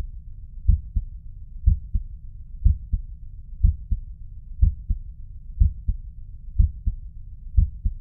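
Heart sounds recorded by auscultation: a lub-dub pair about once a second, over a steady low rumble. The low-pitched first heart sound comes from the closure of the mitral valve. About a third of a second later comes the higher-pitched second heart sound, from the closure of the aortic valve.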